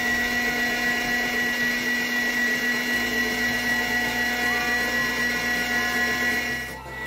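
Electric stand mixer running steadily with a whining motor, its beater creaming margarine, butter and powdered sugar in a stainless steel bowl. The sound dips briefly just before the end.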